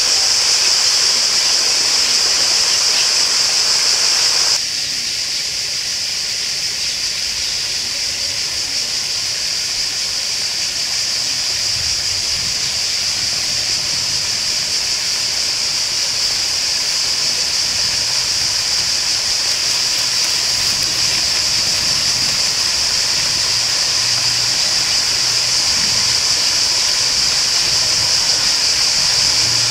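Running water from a stream or small waterfall: a steady rushing with a strong high hiss. About four and a half seconds in, the sound changes abruptly and becomes softer in the middle range.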